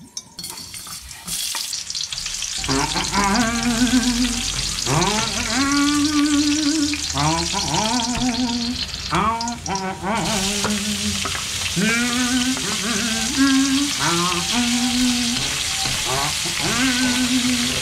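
Oil sizzling and food frying in a wok, a steady hiss. From about two and a half seconds in, a melodic tune of held notes that slide up into each other plays over it.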